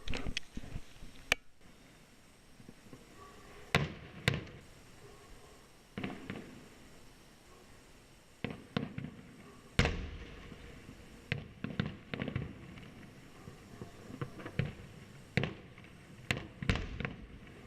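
Fireworks exploding in the air: a string of sharp bangs at irregular spacing, roughly one every one to two seconds, some close pairs, each trailing off in a short rumbling echo.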